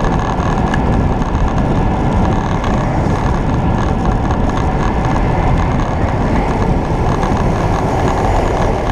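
Steady rushing wind noise on the microphone of a bicycle-mounted camera while riding, mixed with road noise.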